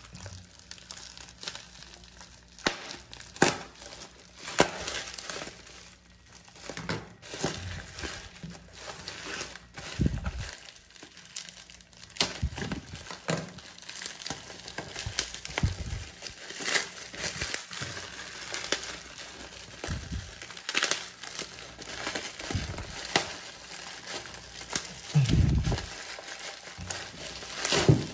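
Plastic bubble wrap and a plastic courier pouch being handled, cut and pulled open by hand: irregular crinkling and crackling throughout, with a few dull thumps.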